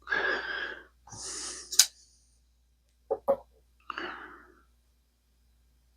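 Short breathy rushes of sound, like heavy exhales, with one sharp click about two seconds in, two quick clicks near the middle and a last breathy rush. This is handling of an edge-sharpness tester as a knife blade is pushed through its test media.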